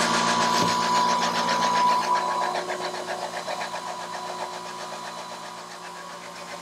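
CNC milling machine's end mill cutting aluminium plate: a steady spindle and cutting whine over a rapid, even chatter of the cutter. It grows quieter through the second half.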